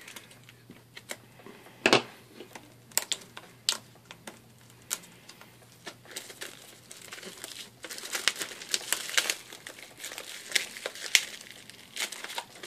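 Plastic shrink-wrap on a trading-card box being slit with a craft knife and peeled off by hand. Scattered sharp crackles come first, then denser crinkling from about halfway through.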